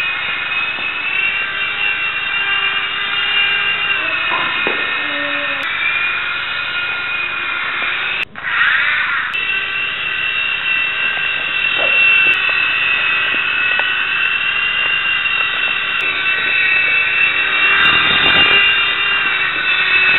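Micro RC helicopter's small electric rotor motors whining steadily in flight, the high whine wavering a little in pitch as it hovers and manoeuvres. The sound breaks off for an instant about eight seconds in, and a broader rush of rotor noise swells up near the end.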